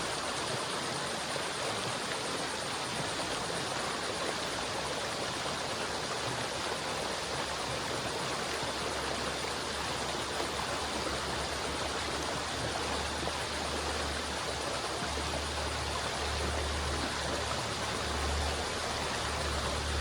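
River water flowing steadily, an even rushing sound. A low rumble comes in about halfway through and grows a little louder near the end.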